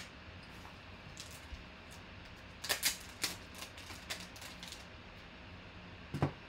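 Hard plastic card holders clicking and tapping as graded-style football cards are handled: a quick cluster of sharp clicks a little under halfway through, lighter ticks after, and one louder knock near the end.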